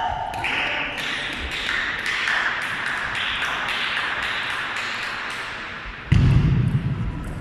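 Table tennis ball taps in a large sports hall, over a steady hiss. A louder low sound starts about six seconds in.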